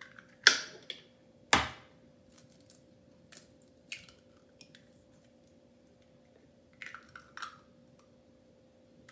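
Eggs being cracked into a glass mixing bowl: two sharp knocks in the first two seconds, then faint taps and shell crackles about seven seconds in as the next egg is broken open. A faint steady hum lies underneath.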